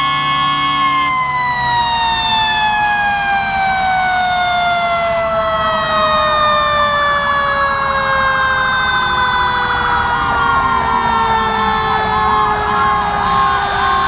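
Fire truck sirens. One siren holds a steady high pitch for about a second, then slowly winds down in pitch over the next twelve seconds. Another siren wavers rapidly up and down in the last few seconds, and a siren starts winding up again at the very end.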